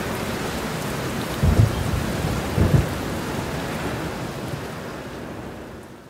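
Steady rain with two short low rumbles of thunder, about one and a half and nearly three seconds in; the rain fades out near the end.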